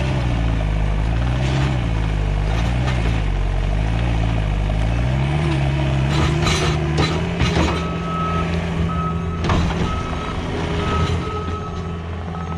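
Skid steer's engine running under load, its pitch rising and falling for the first several seconds and then holding steady. About halfway through, the backup alarm starts beeping repeatedly as the machine reverses, with a few sharp knocks from the working machine along the way.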